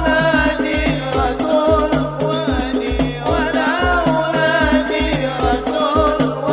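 A man singing an Arabic sholawat into a microphone, backed by hadroh frame drums with a deep bass drum keeping a steady beat of about two strokes a second.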